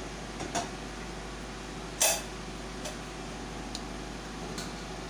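Metal spoon knocking and scraping against a clay handi while rice is spooned into it: one sharp clack about two seconds in and a few light taps, over a steady background hum.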